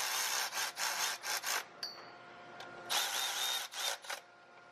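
Hand-held power tool running in bursts as it tightens mounting bolts: one longer run with quick dips, a pause of about a second, then a shorter run with a thin whine and a couple of quick blips.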